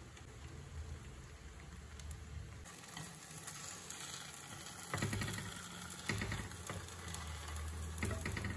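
Egg pancake frying faintly in a non-stick pan while chopsticks click and scrape against the pan as the pancake is rolled up. There are sharper clatters about five, six and eight seconds in.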